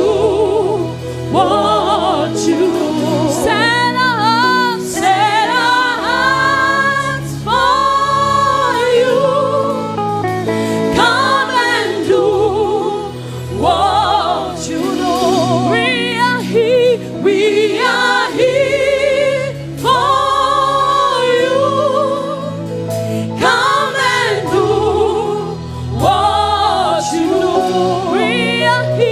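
Gospel worship song: singing with a strong vibrato in phrases a second or two long, over instrumental accompaniment with steady bass notes.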